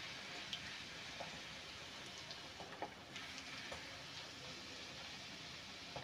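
Bhatura deep-frying in hot oil in a kadhai, puffing up: a faint steady sizzle with scattered small crackles and pops.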